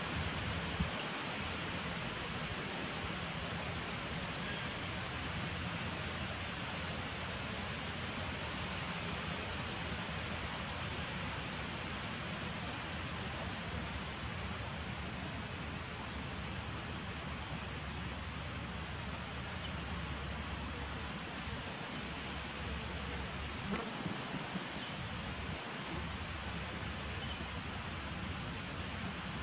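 Honeybees buzzing at the entrance of a nucleus hive: a steady low hum of many bees. A steady high-pitched insect chorus runs behind it.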